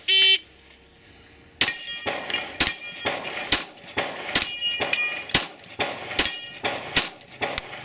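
A short electronic beep, then after about a second and a half a run of roughly a dozen gunshots at about two a second, many followed by the ringing clang of steel targets being hit.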